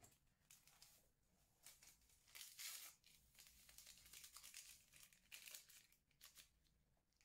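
Faint crinkling and tearing of a small paper sachet of vanilla sugar being handled and torn open, loudest a little over two seconds in, with scattered crackles after.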